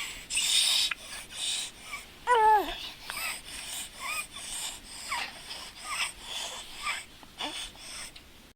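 Recorded breath sounds with high-pitched musical wheezes: quick repeated breaths, several carrying short tones that slide down in pitch, the loudest a wavering one about two seconds in.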